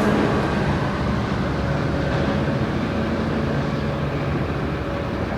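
GO Transit commuter train running through the station: a steady diesel locomotive drone over the rumble of the train, with no horn sounding.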